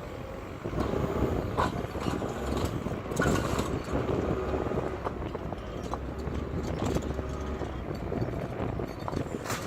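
Paving site work: an engine of work machinery running steadily with many irregular sharp clacks and knocks, as of concrete paving stones being set down.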